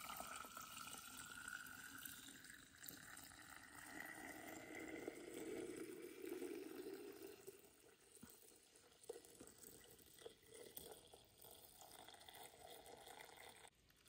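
Broth pouring in a thin stream from a stainless steel pot through a plastic funnel and nut bag into a glass mason jar: a faint trickle and fill, with a tone that rises over the first few seconds as the jar fills. It goes fainter after about eight seconds, with a couple of small clicks.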